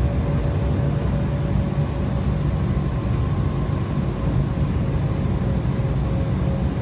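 Steady cabin noise of an Embraer 190 heard from a window seat: the GE CF34 turbofans and airflow make an even low rumble with a thin steady tone running through it.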